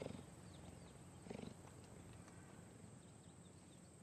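Near silence: faint background hiss, with two soft low sounds, one at the very start and one about a second in.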